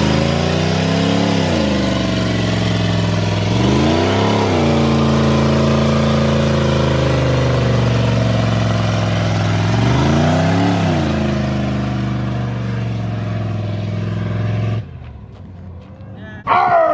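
Lowered OBS GM pickup doing a burnout: the engine held at high revs, rising and falling in pitch three times, over the hiss of the rear tyres spinning on the pavement. The sound cuts off suddenly near the end.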